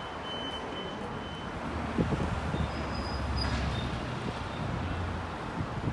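Road traffic on a busy city street: vehicles passing close by, with a low engine rumble that swells about two seconds in and holds for a few seconds.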